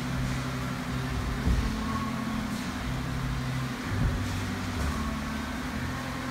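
Dull thuds of gloved punches landing during boxing sparring, about one and a half and four seconds in, over a steady low drone and hum in the gym.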